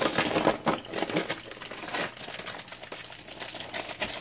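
Frozen dumplings pan-frying in oil, crackling and spitting irregularly.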